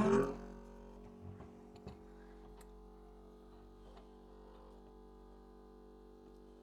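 LCD separator's vacuum pump running with a quiet, steady hum, with a few faint clicks in the first two seconds.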